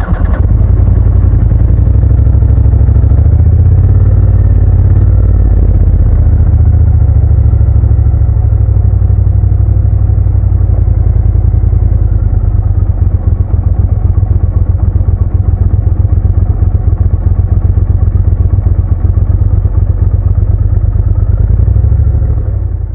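Motorcycle being ridden, its engine running steadily under a loud low rumble, cutting off suddenly at the very end.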